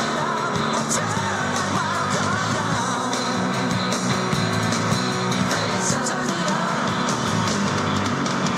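Music: a song with guitar and a singing voice, playing steadily.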